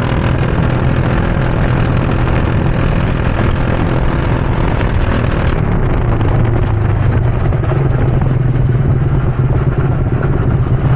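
Rental go-kart engine running steadily, heard from the driver's seat. About halfway through the high hiss drops away, leaving a steady low engine note.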